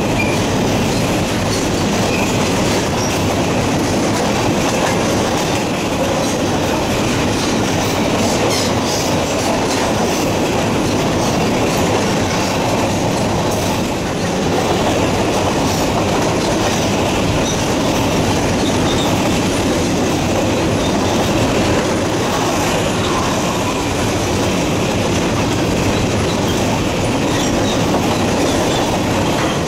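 Covered hopper cars of a unit phosphate train rolling past at speed: a steady, loud rumble of steel wheels on rail with clickety-clack from the wheels.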